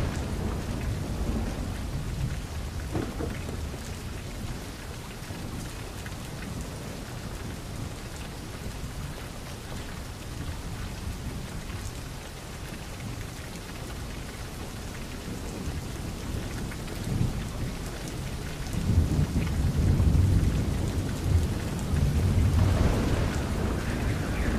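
Steady rain with thunder, and deep thunder rumbles building up loud about three-quarters of the way through.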